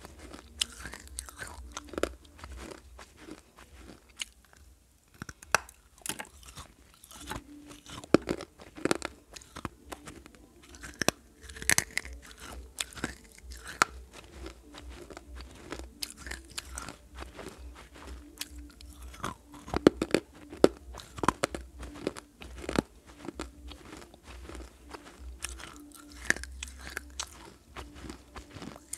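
Pieces of clay pot being bitten and chewed close to the microphone: irregular sharp crunches, some much louder than others, all the way through.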